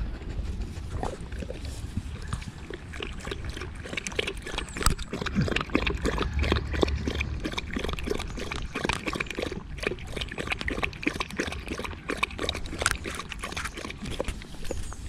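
Dog lapping water from a small portable bowl: rapid, continuous wet lapping clicks.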